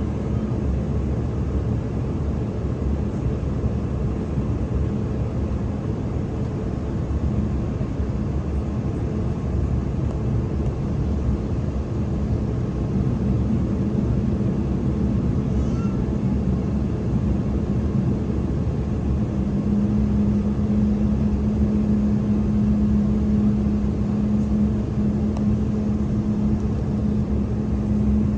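Cabin noise inside an Embraer E190-E2 on the ground: its Pratt & Whitney PW1900G geared turbofans running at low power with a steady rushing hum. A steady low drone comes in about halfway through and grows stronger toward the end.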